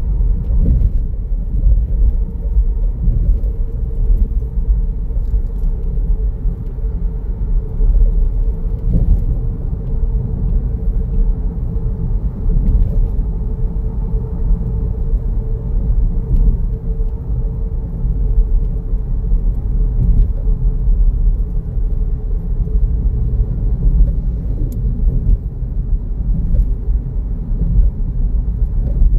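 A car driving at speed: a steady, heavy road rumble with a faint steady hum above it.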